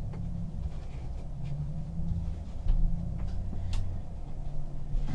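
Trading cards being handled and set down on a tabletop: a few faint rustles and light ticks over a low steady hum.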